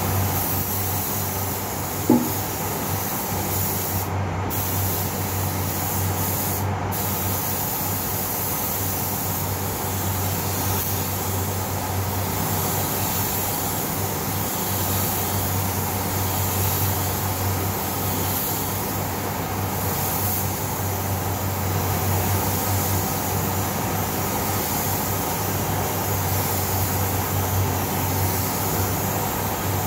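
Gravity-feed compressed-air spray gun hissing steadily as it sprays car paint, over a steady low hum. The hiss cuts out briefly twice, a few seconds apart, and there is a single sharp knock about two seconds in.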